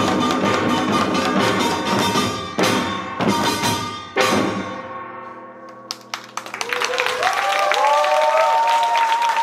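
A Korean samul nori ensemble of janggu hourglass drums, buk barrel drums and gongs plays a fast, dense rhythm that breaks into a few heavy final strokes, the last about four seconds in, and the gongs ring out and fade. From about seven seconds in, the audience breaks into applause and cheering.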